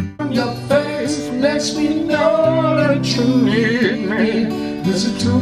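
Acoustic guitar playing chords under a voice singing a wavering melody.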